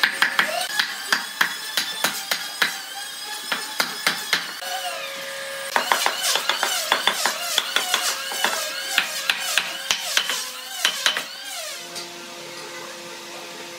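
Hammer knocking stacked log sections down onto their wooden dowels, in quick irregular strikes that stop about twelve seconds in.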